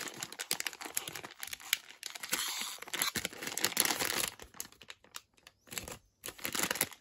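Plastic sweet packet of Vidal filled strawberry gummies crinkling and tearing as its sealed top is pulled open, with a louder stretch of rustling about halfway through.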